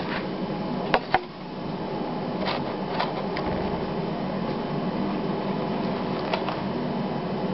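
Two sharp knocks close together about a second in as a camera is set down on a wooden table, then a steady background hum with a few faint taps and the handling of a paper towel.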